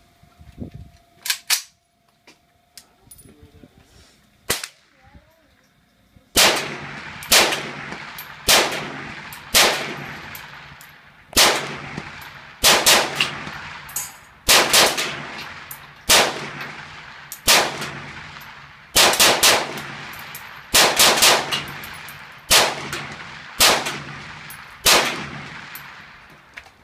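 Century VZ2008 semi-automatic rifle, a clone of the Czech VZ58 in 7.62×39 mm, fired about twenty times. The shots come at roughly one a second, some in quick doubles and triples, each loud with a trailing echo. A few sharp clicks come before the shooting starts.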